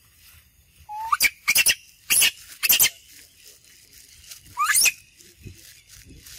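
Baby monkey giving shrill squeals, about five in quick succession, then one more rising squeal a couple of seconds later.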